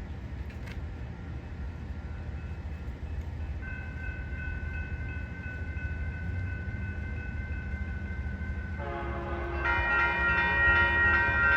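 Union Pacific SD59MX diesel locomotive approaching a grade crossing over a low rumble. A steady high tone starts about 4 s in, and about 9 s in the locomotive's air horn chord blasts much louder, sounding as a horn salute.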